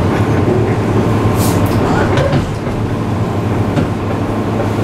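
Cabin of a JR East 201 series electric train as it comes to a stop at a station: a steady low hum with a few constant tones, a brief hiss about a second and a half in, and the sound easing slightly halfway through.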